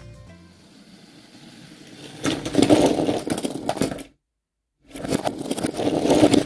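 Lego train running along plastic track, its small electric motor whirring and its wheels rattling over the rails, in two stretches of about two seconds split by a sudden silent cut.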